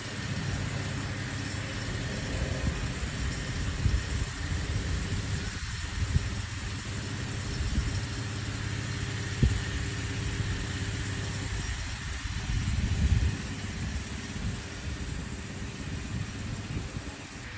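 Engine-driven irrigation pump running steadily, under a constant hiss of water spraying from tripod-mounted sprinkler guns.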